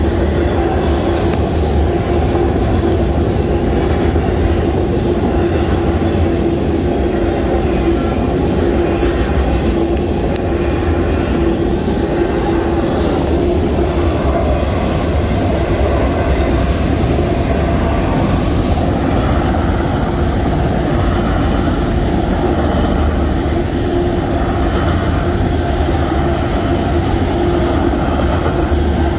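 Freight train of autorack cars rolling past: loud, continuous rumble of steel wheels on rail with a steady tone running over it.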